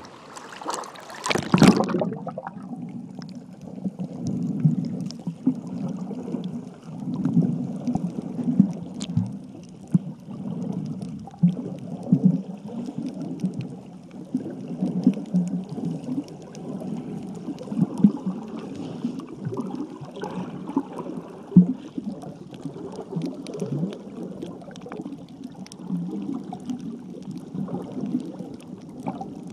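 A splash as the phone plunges below the surface, then muffled underwater water noise heard through a sealed Lifeproof waterproof case, low and gurgling, swelling and fading in uneven surges.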